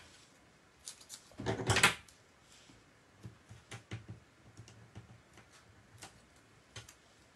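Paper and craft pieces handled on a desk: a short crackling rustle about a second and a half in, the loudest sound, followed by scattered light clicks and taps.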